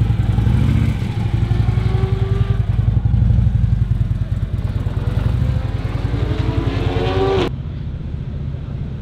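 Harley-Davidson touring motorcycle's V-twin engine running with a fast, pulsing low rumble, revving up several times with rising pitch as it is ridden off. About seven and a half seconds in the sound drops abruptly to a quieter, steadier engine rumble.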